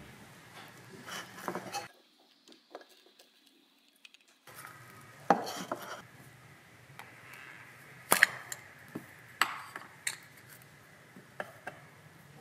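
Hands handling a hard plastic toy capsule pulled from foam beads: scattered sharp plastic clicks and taps, the loudest about five, eight and nine seconds in.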